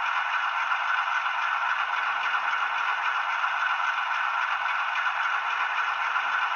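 HO scale GE ES44AC model locomotive's sound decoder playing a diesel engine running at low throttle through the model's small onboard speaker: a steady, thin hum with almost no bass, as the model creeps at speed step one.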